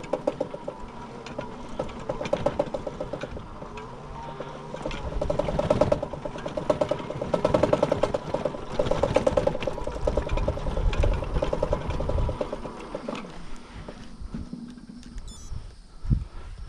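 E-bike riding over rutted sand and dirt: a fast, even buzz from the tyre and drive with a steady whine, dropping away about thirteen seconds in, leaving knocks and rattles from the bike over the bumps near the end.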